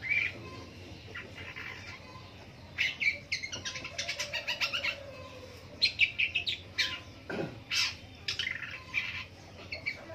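Long-tailed shrike (pentet) singing in bursts of quick, high chattering notes separated by short pauses, with one falling swooping note about seven seconds in.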